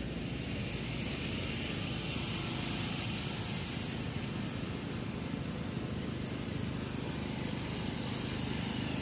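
City street traffic: a steady mix of vehicle engines and tyre noise, with no single event standing out.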